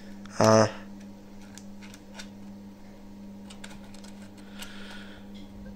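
Faint light clicks and taps of a hard-drive bracket and small parts being handled and fitted inside an opened MacBook case, over a steady low hum. A single short spoken syllable comes about half a second in, and a soft breathy hiss comes near the end.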